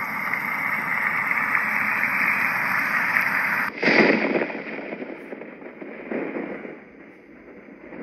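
Roffie N600 white noise machine's speaker playing a steady hiss. About three and a half seconds in, a touch on its top panel cuts it off abruptly and a different sound track starts, made of irregular surges about a second apart.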